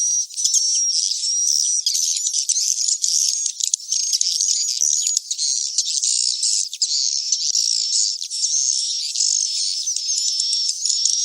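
Swiftlet roosting-call lure track ('suara inap'), as played from speakers in a swiftlet house to draw the birds in to roost. It is a dense, continuous twittering of many swiftlet chirps with steady whistle-like notes, and all low pitches are filtered out.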